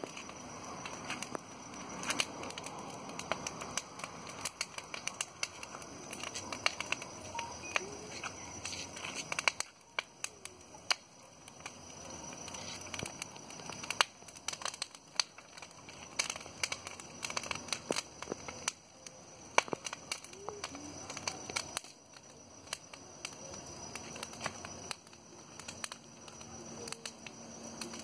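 Large bonfire of branches burning, the wood crackling with many irregular sharp pops.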